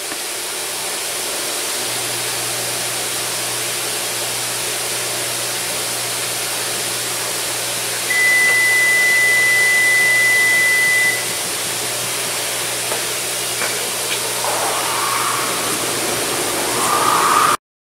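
Steady hiss of workshop background noise with a faint low hum. About eight seconds in, a single steady high-pitched tone sounds for about three seconds, while the horn button is held and the test bulb on the disconnected horn connector lights: the horn circuit is live but no horn sounds.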